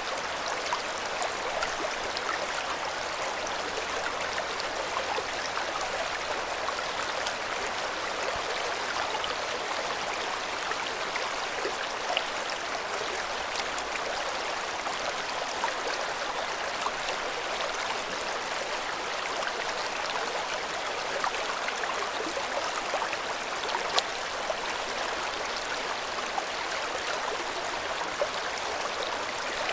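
River water flowing steadily, an even rushing with small splashes and droplet ticks scattered through it.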